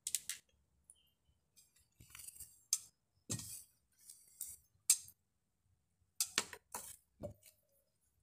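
Hot machete blade being hardened in quenching oil, giving about a dozen irregular sharp crackles and clicks.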